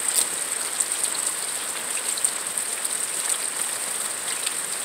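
Thunderstorm rain falling steadily, with scattered drop ticks and a steady high-pitched buzz running over it.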